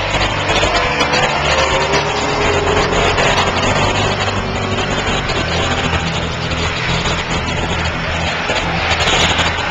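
Several small vintage-bodied oval-track race cars racing in a pack, loud engine noise with the revs rising and falling as they go through the turn.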